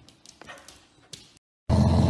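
A few faint taps, then near the end a dog breaks into a loud, steady snarling growl.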